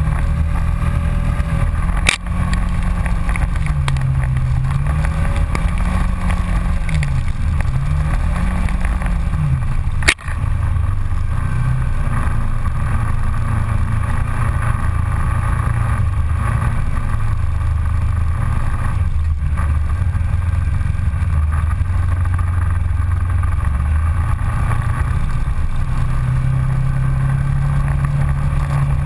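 Ranger side-by-side UTV engine running under way on a dirt trail, its pitch rising and falling with the throttle for the first ten seconds, then holding steadier. Two sharp knocks, about two seconds in and again about ten seconds in.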